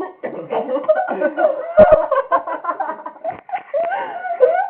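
People laughing and talking in high voices, with two quick thumps a little under two seconds in.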